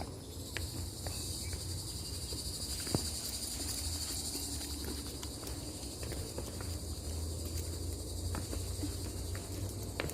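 Insects buzzing in a steady, even high-pitched chorus, with a few scattered clicks and knocks and a low rumble underneath.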